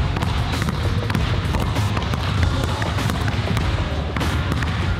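Basketball dribbled repeatedly on a hardwood court, the ball slapping the floor in a quick run of bounces.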